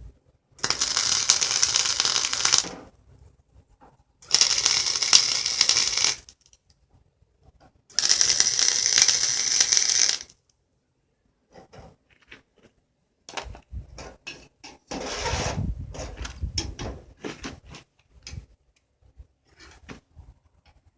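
Arc welding the cart's pedals: three crackling bursts of about two seconds each, a few seconds apart. These are tack welds. Scattered metal knocks and clatter follow in the second half.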